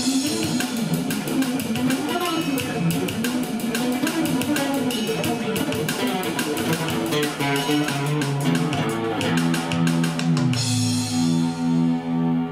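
Guitar playing a busy funk jam through effects pedals, over a moving low line. About nine seconds in it gives way to held notes that pulse evenly and die away in the highs.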